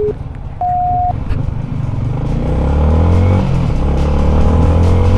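A couple of short electronic beeps, then a motorcycle engine accelerating, its pitch climbing steadily, dipping briefly at a gear change about three and a half seconds in, and climbing again.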